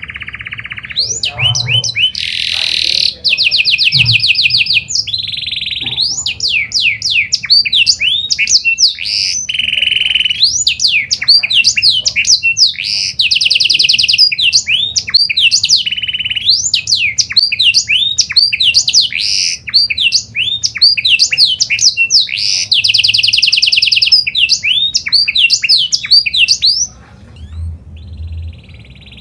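Pied domestic canary singing a long, continuous song: rapid buzzing trills and rolls alternate with runs of quick swooping notes. The song stops about two seconds before the end.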